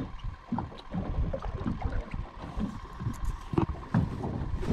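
Small waves lapping and slapping against the hull of a drifting fishing boat, in irregular low knocks, with a few sharper knocks near the end and a faint steady tone underneath.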